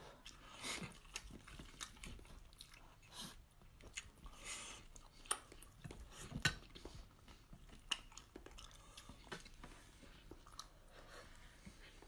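Close-miked chewing of food, with wet mouth clicks and occasional crunches at irregular intervals.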